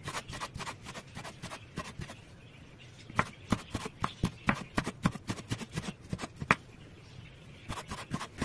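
Kitchen knife chopping a red kapya pepper on a wooden cutting board: a quick run of knocks, about three a second, that pauses for a moment about seven seconds in and then starts again.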